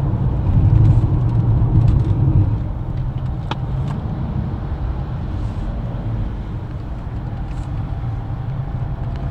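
Road and engine noise inside a moving car's cabin: a steady low rumble, louder for the first two and a half seconds, with a few faint clicks.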